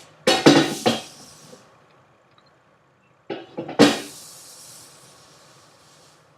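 Handling noises: a burst of knocks and rustling, then after a pause another sharp knock that trails into a hiss fading away over about two seconds.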